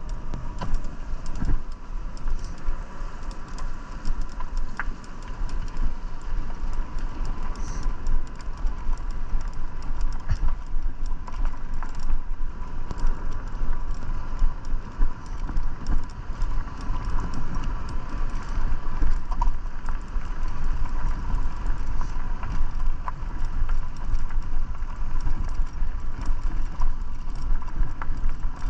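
Electric bike riding over a dirt and gravel path: the bike rattles and the tyres crunch with many small clicks, over a heavy low rumble of wind on the microphone and a steady high whine from the electric motor.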